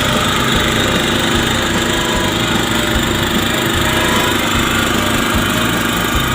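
Komatsu PC01-1A mini excavator running, its small engine working steadily with a harsh, even mechanical noise over an uneven low rumble.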